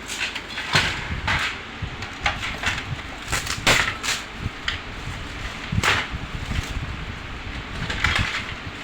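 Irregular clicks, taps and scraping handling noises over a steady background hiss.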